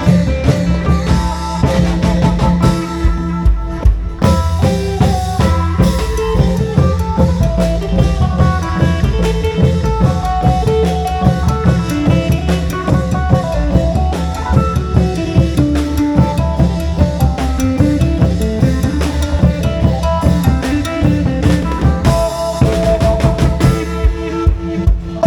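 Isan long-drum troupe playing Isan folk music: a fast, steady drum beat with a melody line over it.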